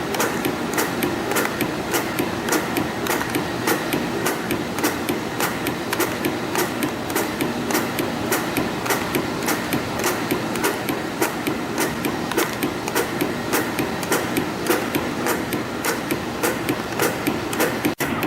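CF-310 CNC compression spring coiling machine running, forming conical tower springs: sharp clicks at a steady rhythm of about three a second over a continuous mechanical whir. The sound cuts out for an instant near the end.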